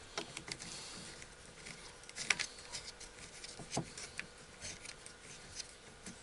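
Small metal clicks and taps of hands working on a chainsaw attachment for an angle grinder, fitting nuts onto the bar's clamping studs, with a couple of sharper clicks about two and four seconds in.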